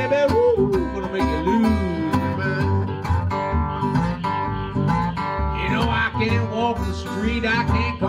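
Country blues played on acoustic guitar in open G, with a washtub bass thumping out a steady beat and a bending melody line above them.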